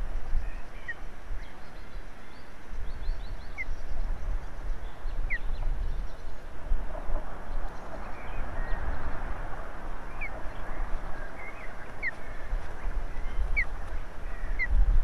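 Wind buffeting an outdoor nest-camera microphone in gusts, with a short rising chirp from a bird every second or two.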